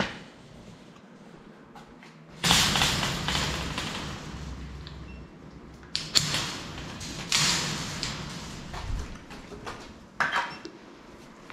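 Wire-mesh storage cage door rattling in several loud bursts, with sharp metallic clicks of a padlock being handled about six seconds in.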